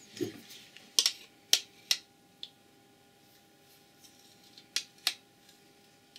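Sharp plastic clicks and taps as a handheld Martindale FL30 lamp tester and a compact fluorescent bulb are picked up and brought together. There is a cluster of four or five clicks in the first two and a half seconds, then a pair near the end.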